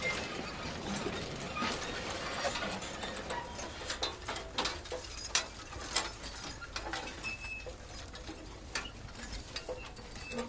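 Manure spreader at work: a steady noisy wash with many irregular sharp clicks and rattles, thinning out slowly toward the end.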